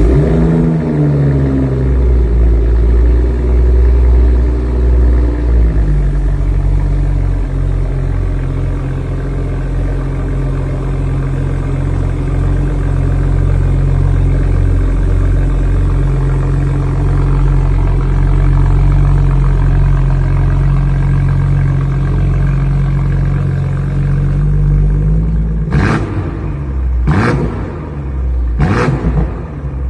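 BMW M340i's 3.0-litre turbocharged inline-six (B58) just after a cold start: it flares to a high idle that falls and settles after about six seconds into a steady idle. Near the end come four or five quick throttle blips, each rising and dropping back.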